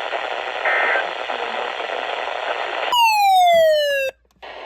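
Radio hiss from an emergency alert broadcast, with a short burst of two-pitch digital data tones early on. Near the end comes a loud electronic tone that glides steadily down in pitch for about a second and then cuts off abruptly.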